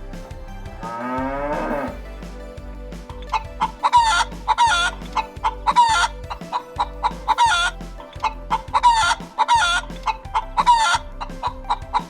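Chickens clucking: after a single rising call about a second in, a quick run of short, repeated clucks at about two a second.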